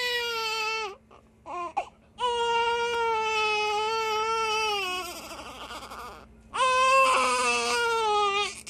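An infant crying: long drawn-out wailing cries, the longest about three seconds, broken by short catching breaths and a softer whimpering stretch just past the middle.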